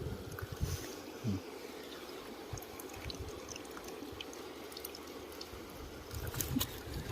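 Water trickling and lapping, with scattered light clicks and a few soft knocks that grow busier near the end.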